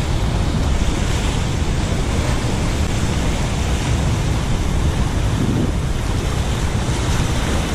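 Fast, turbulent water rushing over rocks below a dam spillway, a steady loud rush with wind buffeting the microphone.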